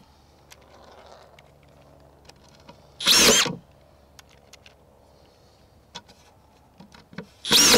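Ryobi 18V brushless drywall screw gun (P225) driving drywall screws, twice: about three seconds in and again near the end. Each time there is a short motor whir, roughly half a second long, that rises and falls in pitch as the screw is run in and the gun stops at its set depth.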